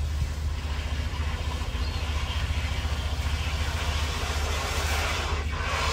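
High-pressure drain jetter's engine running steadily on low revs, with water hissing and rushing as the jet flushes anode sediment out of a storage hot water tank, building and getting louder toward the end.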